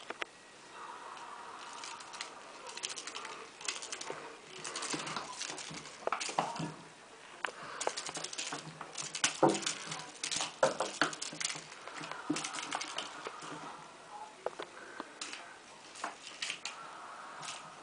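A kitten playing with a string toy on a tiled floor: irregular light taps, scratches and rustles of paws and toy against the tiles, busiest in the middle.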